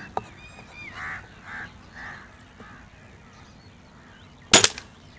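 A single sharp shot from an LB-600 spring-piston air rifle about four and a half seconds in, a test shot while zeroing the scope. Before it, crows caw several times.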